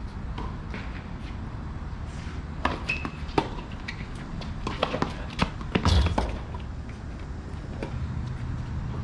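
Tennis rally in doubles: a quick string of sharp pocks of rackets striking the ball on a hard court, starting about two and a half seconds in and coming fastest just before six seconds, ending with a heavier thump.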